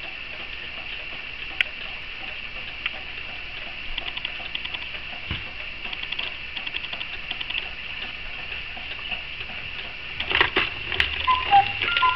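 Mechanical cuckoo clock ticking, then a few louder clunks in the last two seconds as its strike mechanism releases on the hour and the little doors above the dial swing open.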